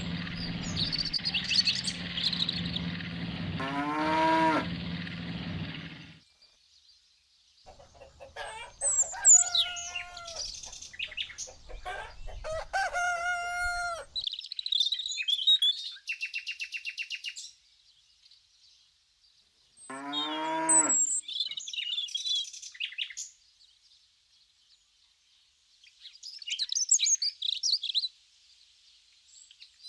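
A string of farm-animal sound effects separated by short pauses. A steady motor hum runs for the first six seconds, and a cow moos about four seconds in and again about twenty seconds in. Hens cluck and birds chirp in between, and more bird chirps come near the end.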